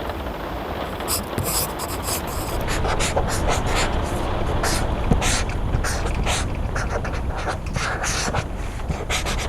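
Pencil scratching on paper in short, irregular strokes over a steady rain.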